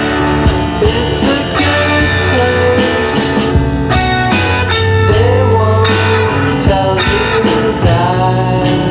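Rock music with guitars and drum hits, in an instrumental stretch of a song.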